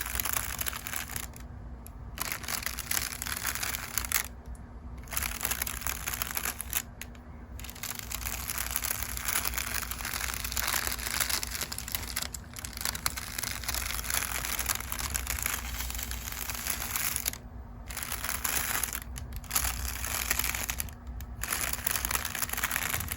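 Makeup brushes brushing over crinkle paper: continuous crisp crinkling and rustling, broken by several brief pauses between strokes.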